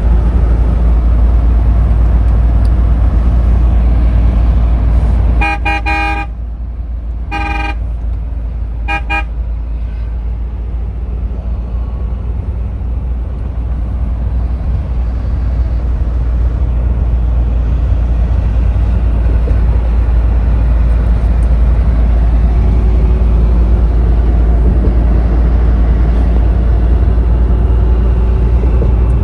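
Steady low rumble of a vehicle on the move, with a vehicle horn tooting three times in short blasts, about six, seven and a half, and nine seconds in; the first blast is the longest.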